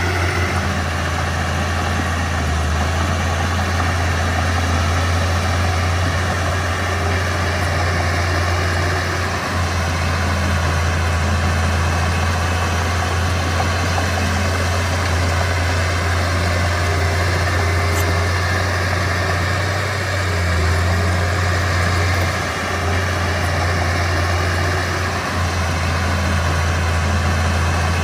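Diesel engine of a Mitsubishi BD2F bulldozer running steadily with a deep, even hum, dipping slightly a few times.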